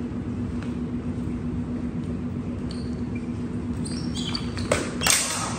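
Athletic shoes squeaking in short chirps on a smooth concrete floor during fencing footwork, over a steady hum. Near the end comes a sharp knock, then a louder, brief clash as the longswords meet in an exchange.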